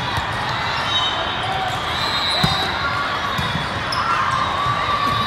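Sound of a busy indoor volleyball hall: a steady hubbub of many voices, with volleyballs thumping repeatedly from play and sneakers squeaking on the court.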